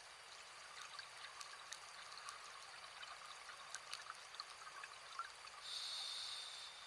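Underwater sound of a scuba diver's regulator. A few seconds of faint crackling exhaust bubbles are followed near the end by the steady hiss of an inhaled breath.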